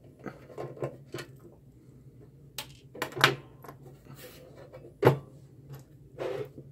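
Sheet-metal case of a soldering and rework station being handled on a workbench: scattered knocks and clunks as it is picked up, turned over and set back down, the loudest about three and five seconds in, over a faint steady low hum.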